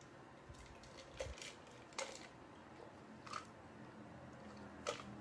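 A person drinking from a plastic tumbler: a few faint, irregularly spaced sips, swallows and cup clicks.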